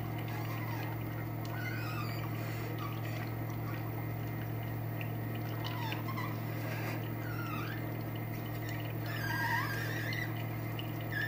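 Stainless-steel screw cold oil press running under load while pressing apricot kernels: a steady low motor hum. Short, wavering high chirps come and go above it and are clearest about nine seconds in.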